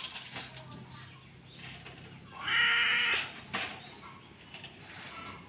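Caged leopard cat giving one short, breathy hiss about halfway through, followed by a brief sharp sound.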